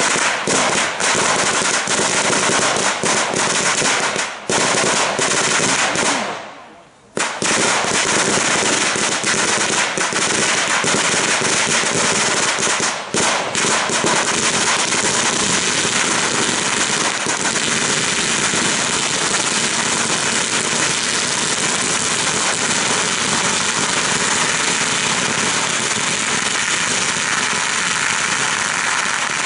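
Mascletà of firecracker chains and salutes going off in a rapid, dense barrage of bangs, merging into an unbroken rattle. There is a brief pause about six seconds in before the bangs resume.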